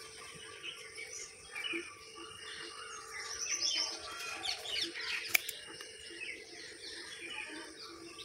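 Small birds chirping and twittering, busiest a few seconds in. About five seconds in comes a single sharp snip of pruning shears cutting through a bonsai branch.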